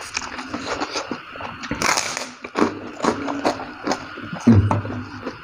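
Close-up mouth sounds of a person eating instant noodles in broth: a loud slurp about two seconds in, then wet chewing with quick clicks and lip smacks, and a short low hum from the eater near the end.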